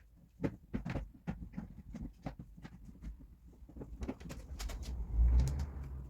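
Irregular clicks and knocks of car trim parts and tools being handled and fitted during reassembly, with a louder scraping, rustling stretch about five seconds in.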